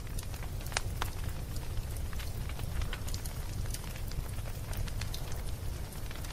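Wood cooking fire crackling: scattered sharp pops over a steady low rumble.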